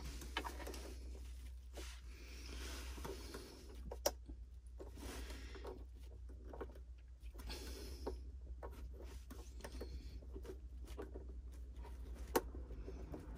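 Faint rustling and fiddling handling noises of hands working at a bait boat's propeller and retaining nut, with a sharp click about four seconds in and another near the end.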